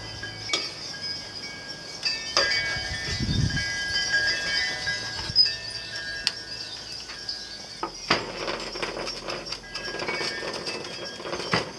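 Chef's knife chopping on a wooden cutting board: a few separate sharp knocks, the loudest about halfway through, over steady high ringing tones in the background.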